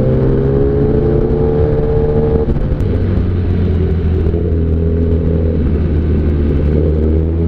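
Inline-four superbike engine heard on board while riding. Its pitch rises gently for the first two seconds or so, then settles into a steadier, lower drone, and starts climbing again near the end.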